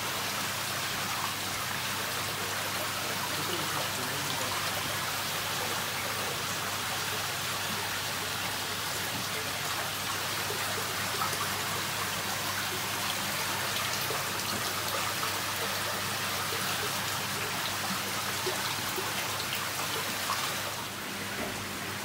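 Aerated koi tank: a steady fizzing, pattering hiss of air bubbles rising and breaking at the water surface, with a faint steady low hum beneath. The hiss drops a little about a second before the end.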